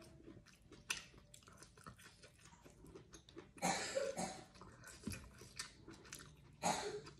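A person chewing food close to the microphone, with small mouth clicks and a couple of louder bursts about halfway through and near the end.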